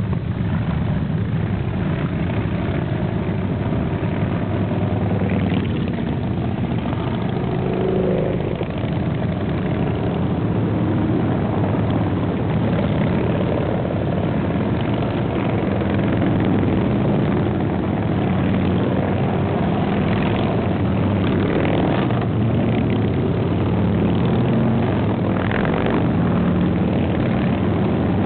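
A procession of custom chopper motorcycles riding past one after another: the continuous mixed rumble of many engines, with brief rises as individual bikes open the throttle and pull away.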